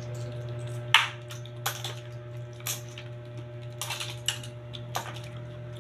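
Crisp cabbage leaves being torn and snapped apart by hand: a handful of irregular sharp crackling snaps, the loudest about a second in, over a steady low hum.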